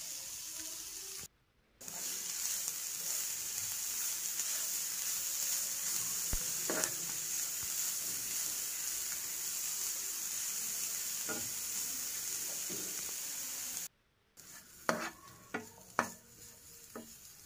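Grated carrot, green chillies and garlic sizzling as they fry in ghee in a nonstick pan, stirred with a spoon. The steady sizzle cuts off suddenly twice for half a second; after the second break it is quieter, with a few light knocks.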